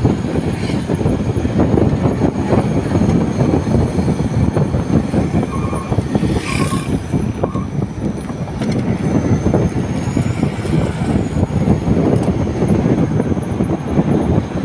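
A car driving along a road: steady rumble of tyre and road noise with wind rushing over the microphone. A brief hiss comes about six and a half seconds in.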